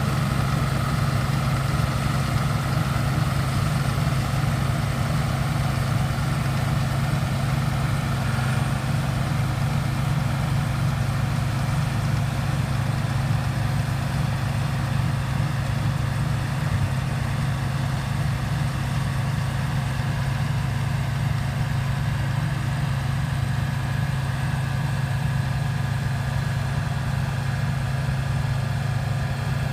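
John Deere 630 running steadily at a constant speed while harvesting wheat, a deep even engine hum with no breaks or changes.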